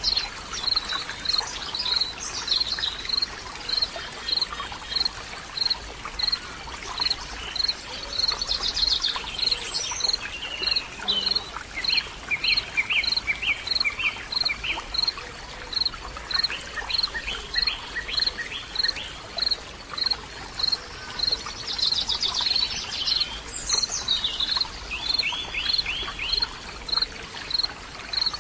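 Nature ambience of birds singing, with bursts of quick trills and falling calls at several points. Under them a high chirp repeats evenly about twice a second throughout, over a steady water-like hiss.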